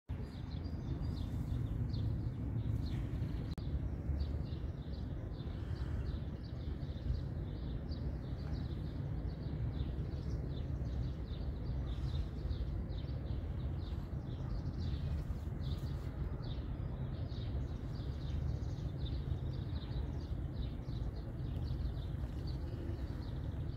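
Small birds chirping in quick, repeated short notes over a steady low rumble.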